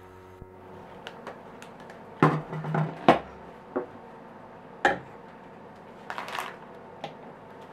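Sharp knocks and clatters of a glass bowl and a plastic digital kitchen scale being handled and set down on a wooden table, with a brief scuffing noise a little after six seconds. The tail of background piano music fades out in the first second.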